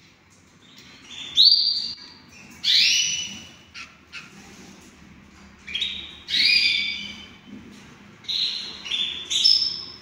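Canaries singing: four loud phrases of long, clear whistled notes, each phrase stepping upward in pitch.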